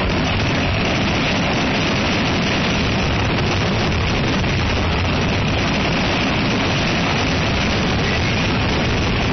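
A fireworks barrage, with many shells launching and bursting in quick succession. The blasts blend into one continuous, loud noise with no gaps between them.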